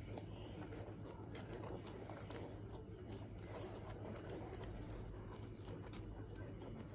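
A spoon stirring thick chocolate cake batter in a mixing bowl, with small irregular scrapes and clicks, over a steady low hum.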